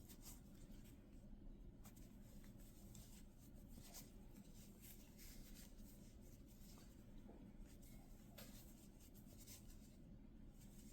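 Faint soft rustling and light irregular ticks of a crochet hook pulling yarn through single crochet stitches, over a low steady room hum.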